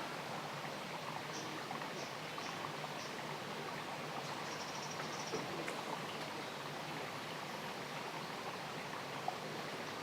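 Steady rushing outdoor background noise, like flowing water, with a few faint high chirps scattered through it.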